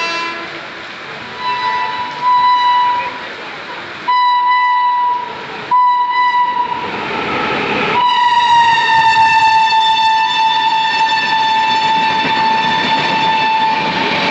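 Electric locomotive's horn sounding four short blasts, then one long blast held as the train passes, dipping slightly in pitch. Underneath, the rush and rumble of the passing locomotive and passenger coaches grows.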